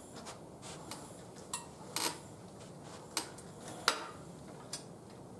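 Harbor Freight manual tire changer being worked by hand, its metal parts giving about five sharp metallic clinks and clanks over a few seconds, the loudest near the end.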